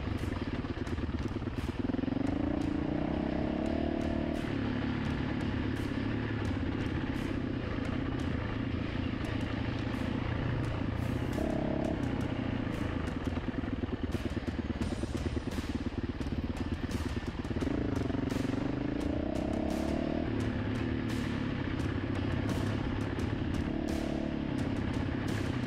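Dirt bike engine running under way, revving up and falling back several times, with a rev rise about 2 seconds in, again around 11 and 18 seconds, and briefly near the end. Frequent short clicks and clatter ride over the engine throughout.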